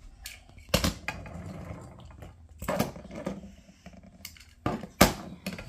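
Die-cast metal toy cars being set down on a hard tabletop and knocked against one another: several sharp clacks at uneven intervals, the loudest about five seconds in.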